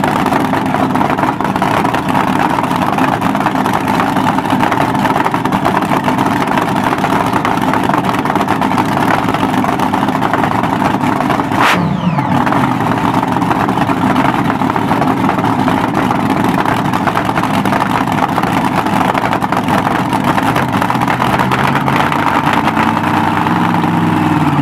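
Supercharged nitro-burning dragster engine running at a loud, steady idle, with a brief change in pitch about halfway through.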